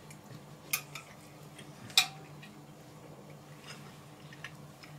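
Fork clinking against a plate as someone eats: two short clinks, a small one under a second in and a louder one about two seconds in with a brief ring, and a few faint light clicks between them.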